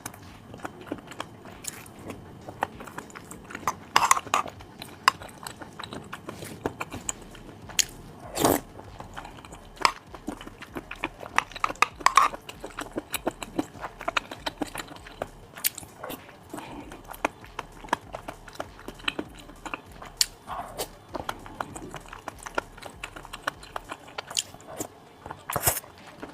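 Close-miked eating: irregular bites, crisp crunches and chewing of kiln-roasted chicken and rice in abalone sauce, with a few louder crunches scattered through.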